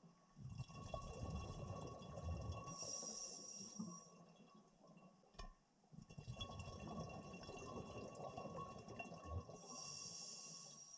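Scuba diver breathing through a regulator, two breaths: each a few seconds of rumbling exhaled bubbles with a short hiss near the end.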